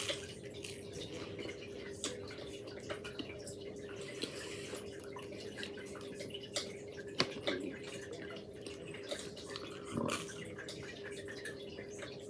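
Quiet sounds of someone eating toast and jam: scattered small clicks and taps, over a faint steady hum.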